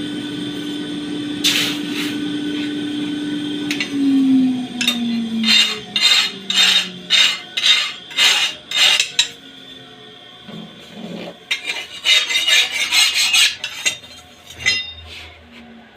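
A machine's steady hum that slides down in pitch about four seconds in as it winds down, followed by a run of sharp metal-on-metal strikes about two a second from forged steel tools, and a quicker cluster of clinks near the end.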